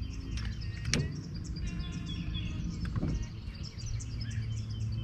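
Small birds chirping and singing, with a quick run of repeated notes about two seconds in, over a low steady rumble. A couple of sharp clicks come through, about one and three seconds in.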